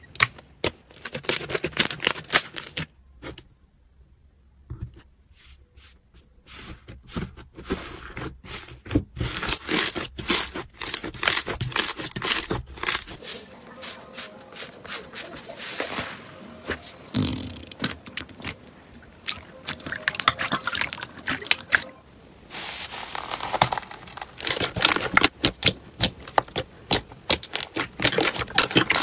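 Hands squeezing, poking and pressing soft glossy and fluffy slime, making a dense, irregular run of sticky clicks, pops and crackles. There is a quieter stretch a few seconds in.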